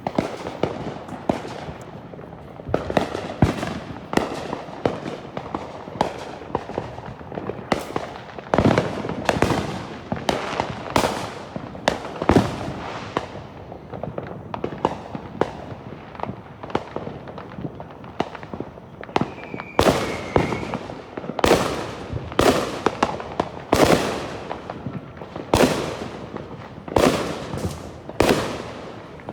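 Fireworks going off in a continuous barrage: sharp bangs one after another, about one or two a second, each trailing off in an echo.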